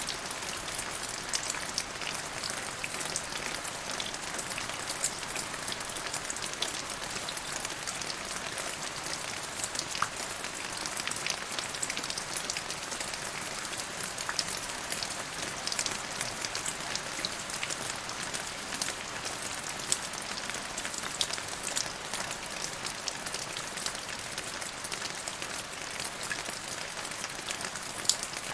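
Steady rain falling, a constant hiss dotted with many sharp individual drop ticks, a few louder than the rest.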